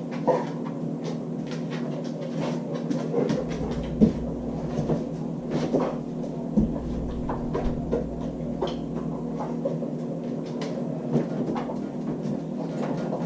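Scattered knocks, clicks and rattles as a dog pulls open a refrigerator door and takes out a water bottle, over a steady low hum.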